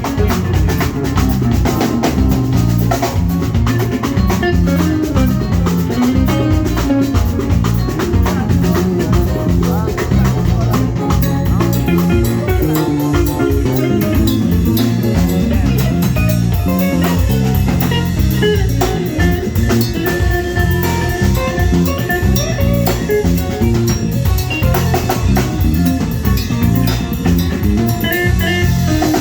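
Live band playing with drum kit and guitars, a steady beat over stepping low notes, without a break.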